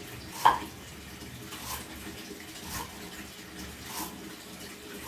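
Cleaver chopping lemongrass on a wooden chopping board, sharp chops roughly once a second, the loudest about half a second in.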